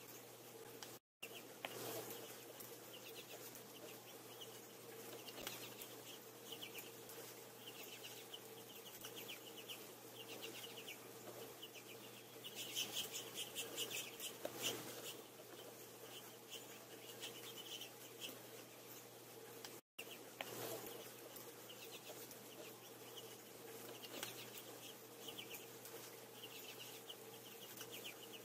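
Finches at a seed feeder chirping in short chattering bursts every second or so, busiest around the middle, over a steady low hum.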